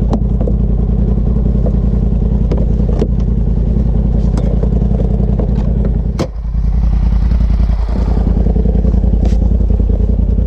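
Side-by-side UTV engine idling steadily, with scattered metallic clanks and knocks from a winch hook and strap being handled. The loudest knock comes about six seconds in.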